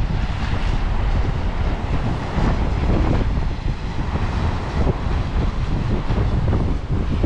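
Strong wind buffeting the microphone: a steady, loud low rumble, with ocean surf washing behind it.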